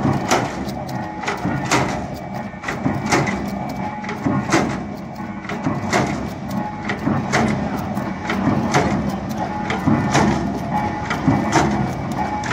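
Heavy-duty expanded metal mesh machine running: its flywheel-driven slitting blade strikes the sheet steel with a heavy clank about every second and a half, with lighter rattling clicks between strokes over a steady machine hum.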